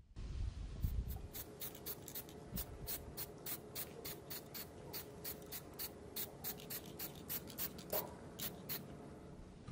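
Aerosol spray paint can sprayed in short, rapid bursts of hiss, about three a second.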